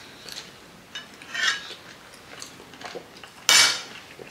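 Metal forks clinking and scraping on ceramic plates during a meal of chicken feet and fries, in short scattered clicks. A brief louder noisy sound comes about three and a half seconds in.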